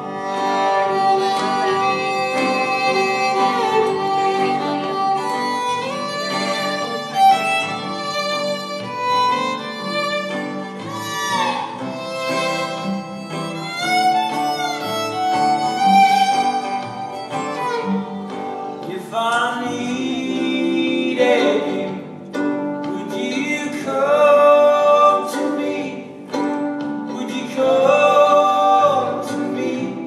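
Live band music: a violin carries the melody over other strings, with singing.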